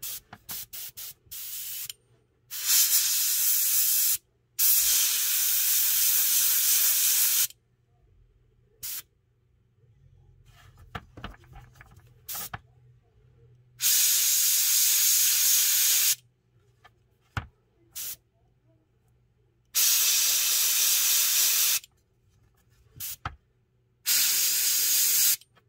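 Master airbrush spraying paint in on-off bursts of hiss, the trigger pulled and released: a few quick puffs in the first two seconds, then about five longer sprays of two to three seconds each, with short spurts between.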